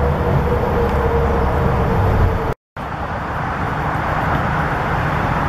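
Steady traffic noise from Interstate 81: a dense low rumble of passing vehicles with a held droning note in the first half. The sound cuts out for a moment about two and a half seconds in, then the traffic noise carries on.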